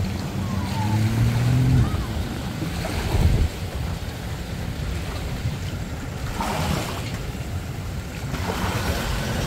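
Small waves washing in and wind buffeting the microphone. A low engine hum, rising slightly in pitch, runs for the first two seconds and then fades out.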